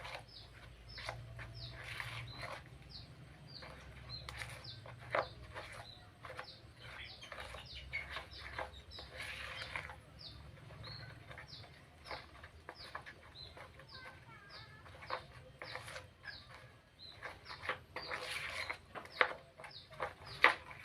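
Birds chirping over and over: short, high, falling peeps a few times a second. Under them are irregular clicks and scrapes of a spoon stirring flour batter in a bowl.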